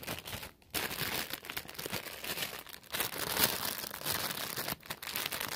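Clear plastic bag crinkling and rustling irregularly as a squishy toy is handled inside it, with a brief pause about half a second in.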